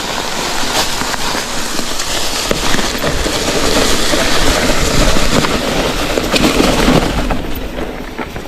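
Mountain bike rolling fast downhill over loose stones, tyres crackling and popping on gravel and rock with the bike rattling, and wind rumbling on the microphone.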